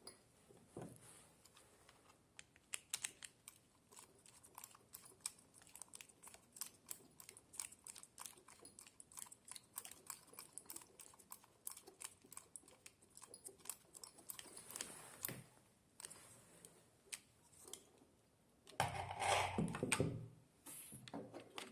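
Faint, quick, irregular clicking like keys being typed on a computer keyboard, several clicks a second, with a brief louder rustle near the end.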